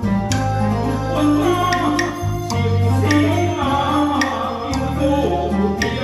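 Taiwanese opera (gezaixi) accompaniment music: an electronic keyboard holding low bass notes that change about once a second, with sharp percussion strikes over it.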